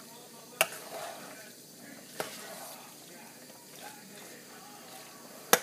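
Potato salad being stirred in a bowl: soft, wet mixing sounds with three sharp clicks of the utensil against the bowl, the last and loudest near the end.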